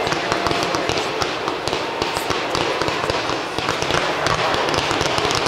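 Fireworks display: a dense run of many quick, sharp pops and crackles over a steady noisy background.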